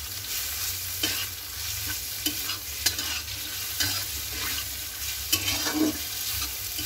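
Sliced onion and capsicum with ginger and garlic sizzling in oil in a kadhai, stirred with a metal spatula that scrapes and clinks against the pan at irregular moments, about once a second.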